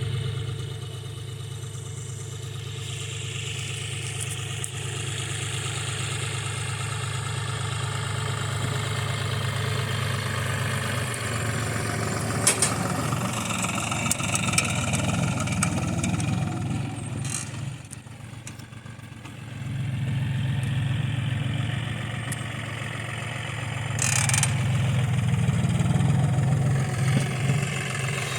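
John Deere tractor engine running steadily while working a cotton seed drill, easing off briefly about two-thirds of the way through, with a few sharp clicks.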